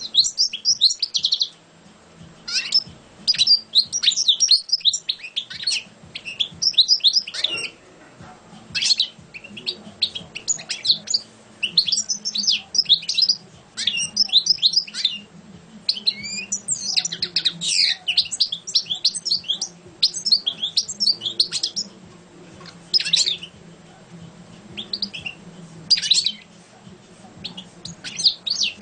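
Caged European goldfinch singing: bursts of fast, twittering song phrases, each one to three seconds long, separated by short pauses.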